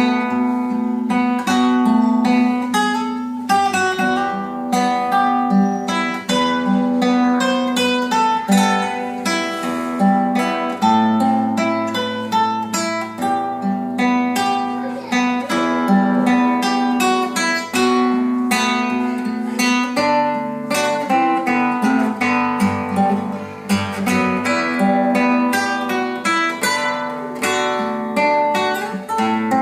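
Matsuoka M50S nylon-string classical guitar played solo: a continuous run of fingerpicked melody notes over held bass notes.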